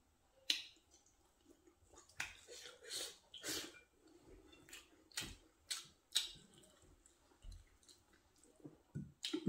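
Eating sounds of a man eating rice and pork curry with his fingers: scattered soft, wet smacks and clicks, about a dozen over several seconds, from chewing and from fingers working the food on the plate.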